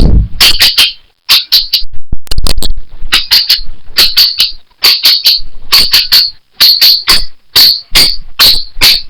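Rhythmic high chirping from an insect, like a cricket: short pulses in quick groups of two or three, repeating about every half second. There is a low thump at the very start and a low rumble about two seconds in.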